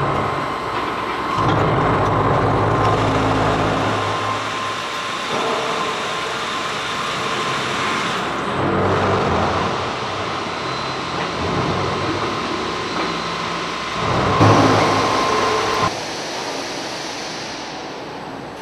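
Concrete paver plant handling line running: conveyor drives hum in stretches that start and stop every few seconds over a steady high whine, with a louder surge of machine noise about fourteen seconds in.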